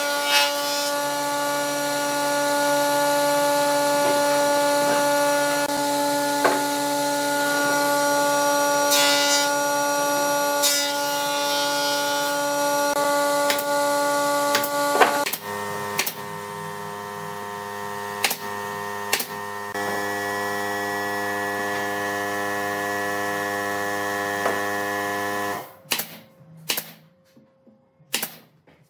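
Pneumatic nail gun firing brads into wooden chair parts: sharp single shots, several close together near the end. Before that, a steady hum of several held tones runs under the scattered shots, changes pitch about halfway through, and cuts off suddenly.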